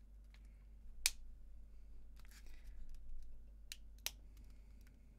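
Sharp plastic clicks and cracks as the casing of an HP MU06 laptop battery pack is pried and cut open with a hand tool, with softer scraping between them. The loudest crack comes about a second in, and two more come close together near four seconds.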